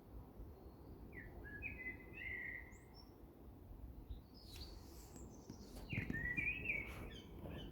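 A bird chirping and whistling in short, quick phrases. There are two bouts, one about a second in and another near the end, over a low background rumble.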